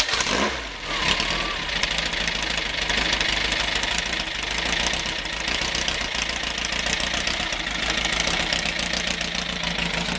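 Off-road buggy's engine running at a steady idle, with a fast, even patter of firing pulses.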